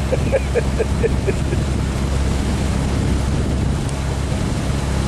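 Pontoon boat's outboard motor running steadily at cruising speed, a constant low hum under wind rushing over the microphone and water noise.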